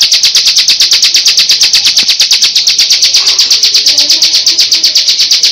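Bar-winged prinia (ciblek) singing its 'ngebren' song: a loud, rapid, machine-even trill of high notes, like a drill.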